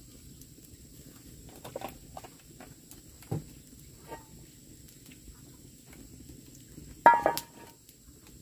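A metal frying pan clanks against its rebar ring stand over a wood fire as it is turned: one sharp, ringing metallic clang about seven seconds in. A few light knocks and clicks come before it.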